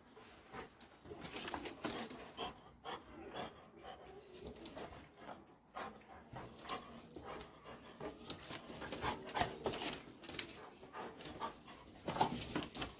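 A Doberman whimpering and panting, with irregular short clicks and scuffs as it moves about on a tiled floor.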